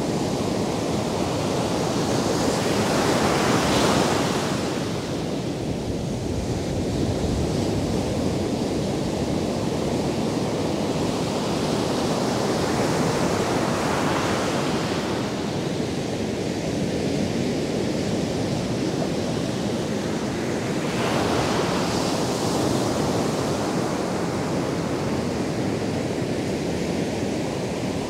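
Atlantic surf breaking on a sandy beach: a steady wash of waves, swelling three times into louder crashes as the bigger breakers come in, about every eight to ten seconds.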